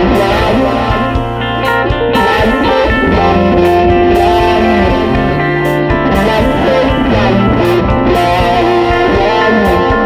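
Background music led by electric guitar, over a changing bass line.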